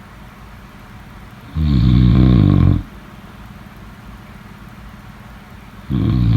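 Snoring while asleep: a loud, low snore lasting just over a second about one and a half seconds in, then a quiet pause, and the next snore starting near the end.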